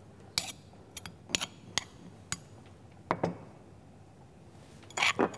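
Metal spoon clinking and scraping against a mortar while scooping out pounded garlic-and-mint paste: a handful of sharp, irregular clicks, a quiet stretch, then a quicker cluster of clinks near the end.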